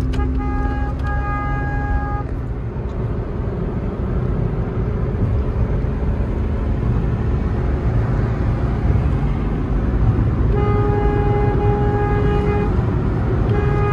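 Road noise inside a moving car: a steady low rumble from the tyres and engine at highway speed. Vehicle horns honk in the first two seconds and again for about two seconds near the end.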